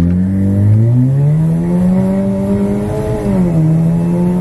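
Car engine pulling hard from a launch-control start, heard from inside the cabin. The engine note climbs steadily, drops at a gear change about three seconds in, then climbs again.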